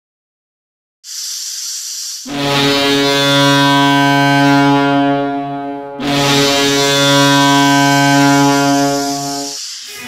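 Avangard Omsk's hockey arena goal horn: a deep, loud horn blowing two long blasts of about three and a half seconds each. A hissing rush of noise comes in about a second in, before the first blast.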